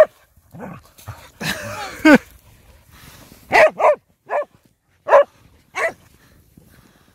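Dogs barking while they wrestle and chase in play: a string of short, sharp barks, with one longer, wavering call about two seconds in.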